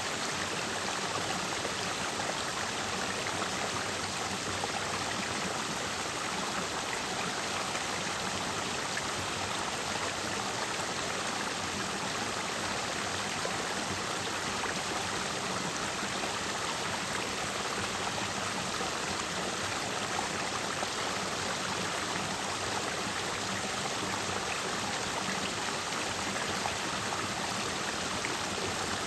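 A clear mountain stream flowing and splashing over rocks, a steady rushing babble with no breaks.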